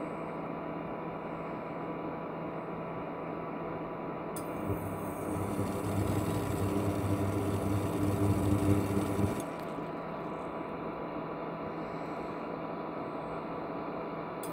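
Ailipu ALP-12 induction hob running under a stainless kettle of water near the boil: a steady fan hiss with a faint high tone. About four seconds in, a louder hum and bubbling sound cuts in and stops again some five seconds later, as the hob cycles its heating on and off.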